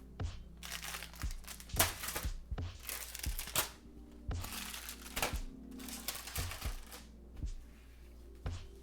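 Plastic packaging crinkling as it is handled, in irregular bursts that die down for the last second or two.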